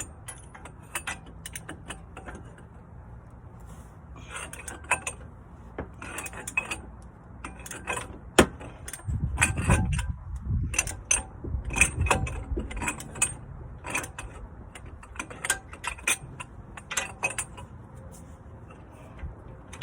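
Hand ratchet wrench clicking in runs of strokes as the strut-to-steering-knuckle bolts are worked loose, with clinks of metal tools; a sharp loud click about eight seconds in and a stretch of low thudding around the middle.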